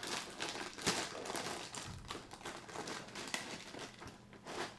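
Plastic inner bag of a cereal box crinkling and rustling as it is pulled open by hand, with a sharp louder crackle about a second in and a last burst of crinkling near the end.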